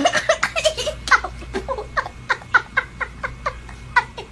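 A person laughing hard in a long run of short, breathy bursts, about four a second.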